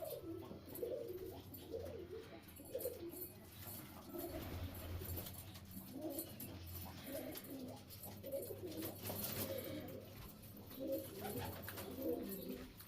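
Pigeons cooing, one soft low coo after another.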